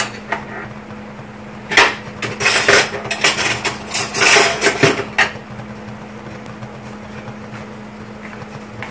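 Kitchenware clattering: a run of sharp metal knocks and clinks begins about two seconds in and lasts about three seconds, over a steady low hum.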